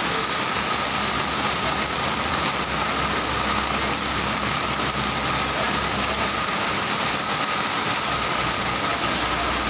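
Heavy rain pouring steadily onto a flooded street, an even, unbroken hiss.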